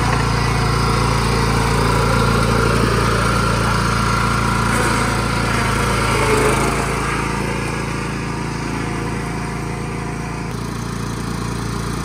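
Cub Cadet riding lawn mower's engine running steadily as it drives off. The engine sound grows quieter from about seven seconds in as the mower pulls away.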